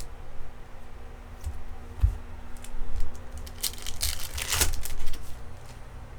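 A foil baseball card pack wrapper being torn open and crinkled, with cards handled between; the loudest crackling comes a little past the midpoint.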